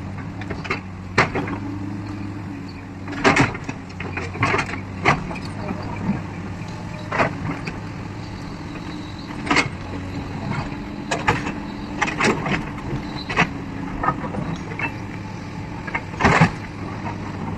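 Excavator's diesel engine running steadily, with irregular sharp clanks and knocks from the working machine, the loudest a little before the end.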